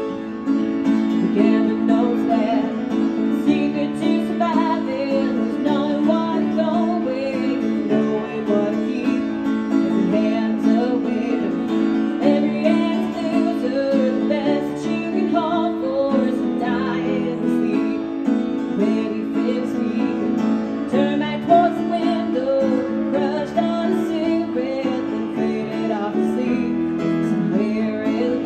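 A woman singing while accompanying herself on a grand piano: sustained piano chords under a gliding, wavering vocal melody.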